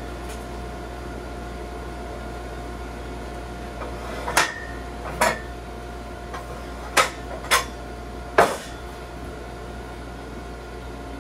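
Sawn boards knocking on the steel sawmill bed and against each other as they are handled, about six sharp knocks between four and nine seconds in. Under them runs a steady machine hum.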